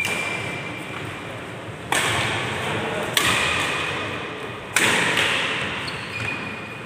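Badminton rally: rackets striking the shuttlecock four times, one to two seconds apart. Each sharp hit echoes in a large hall.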